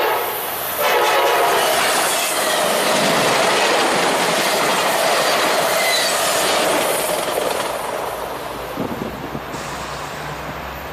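Amtrak Piedmont passenger train with its diesel locomotive passing close by, loud engine, wheel and rail noise with clatter and a brief wheel squeal about six seconds in. The noise eases off near the end as the train moves away.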